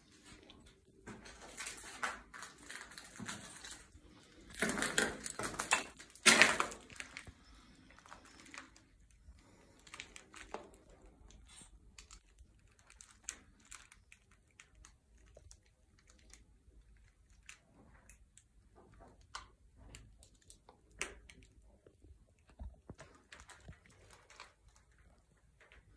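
Footsteps and shuffling over a debris-strewn floor littered with old paper tags: irregular clicks, scrapes and rustles, with the loudest cluster of crunching and rustling about five to six and a half seconds in.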